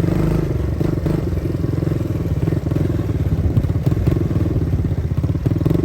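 ATV engine running steadily with an even, rapid firing rhythm and no revving.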